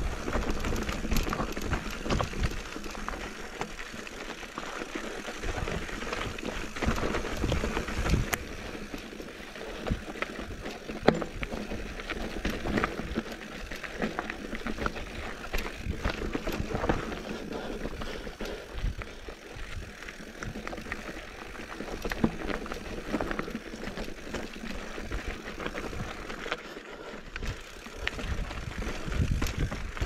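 Mountain bike riding down a rocky dirt trail: tyres crunching over dirt and loose stones, with a constant run of small knocks and rattles from the bike and an uneven low rumble underneath.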